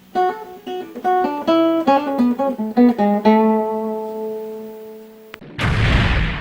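A short plucked guitar phrase of quick separate notes that ends on a chord left ringing and slowly dying away. About five seconds in, a loud, sudden noisy blast cuts in.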